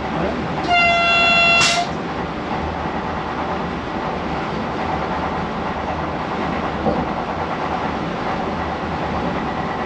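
Vande Bharat Express train horn sounding one blast of about a second, a steady pitched tone, about a second in. It is heard from inside the driver's cab over the steady running noise of the train.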